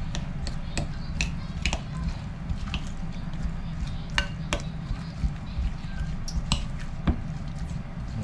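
Metal spoon stirring a thick batter of diced vegetables and tempura flour in a glass bowl: wet squishing with irregular clinks of the spoon against the glass, over a steady low hum.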